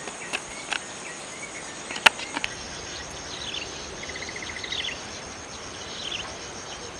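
Steady high-pitched drone of insects in the field, with a short falling chirp repeated about every second and a half from about three seconds in. A few sharp clicks come in the first two and a half seconds, the loudest about two seconds in.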